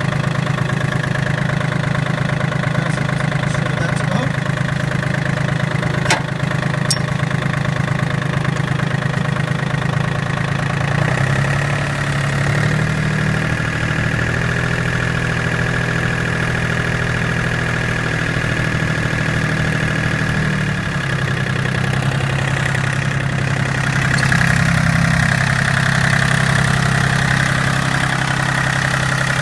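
The three-cylinder 1.4-litre Yanmar diesel of a John Deere 770 compact tractor idling steadily. About eleven seconds in the engine speed steps up and holds, then drops back to idle about ten seconds later.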